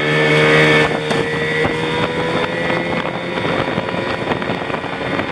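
Outboard motor of a small inflatable boat running steadily under way, with wind and water rushing past.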